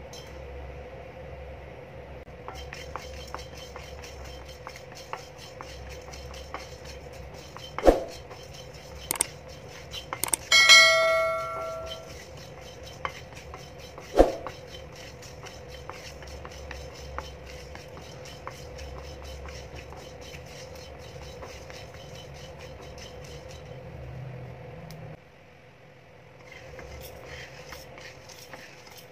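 Whole spices and almonds being dry-roasted and stirred with a wooden spatula in a nonstick kadai: light scraping and rattling clicks over a steady low hum. Two sharp knocks come about 8 and 14 seconds in, and about ten seconds in there is a metallic clang that rings for about a second, the loudest sound.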